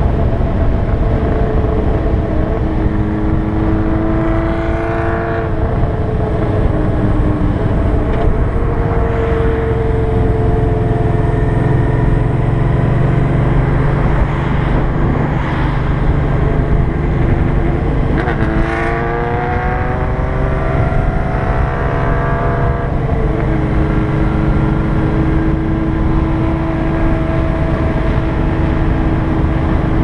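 Motorcycle engine running at road speed, heard from a camera on the moving bike together with wind and road noise. The engine's pitch steps and glides with the throttle, climbing sharply about two-thirds of the way through as it accelerates.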